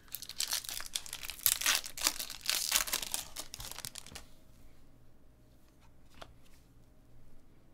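Foil wrapper of a Bowman Sterling baseball card pack being torn open and crinkled by hand for about four seconds. It then goes quieter, with a few faint clicks as the cards are handled.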